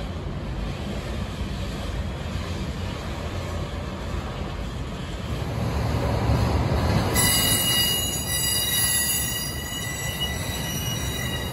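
Freight train flatcars rolling past with a steady rumble of wheels on rail, swelling about six seconds in. From about seven seconds in, high-pitched steel wheel squeal from the cars rounding the curve joins and holds on.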